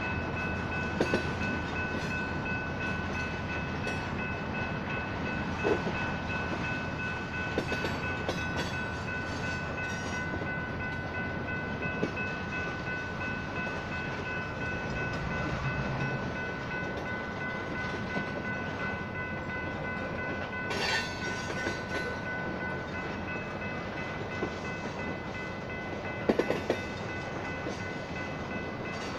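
A freight train of tank cars rolls past with a steady rumble, its wheels knocking now and then over the rail joints. The railroad crossing's signal bells ring steadily over it.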